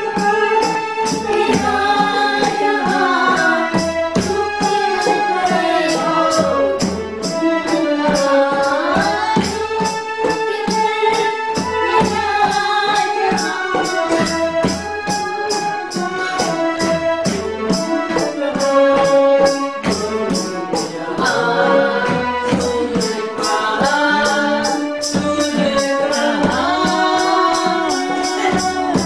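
A woman singing a melodic Indian song, her voice gliding between held notes. She is accompanied by a fast, steady rhythm of jingling hand percussion and a low drum beat about once a second.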